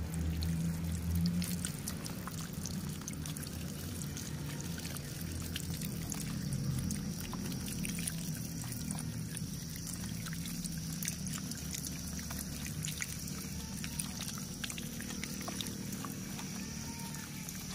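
Thin stream of water pouring and splashing onto small plastic toy vehicles held in a hand, with steady dripping and spattering.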